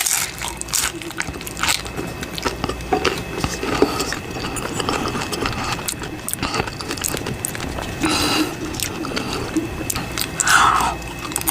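Close-miked chewing of a crunchy corn taco shell: a steady run of small crisp crunches and clicks.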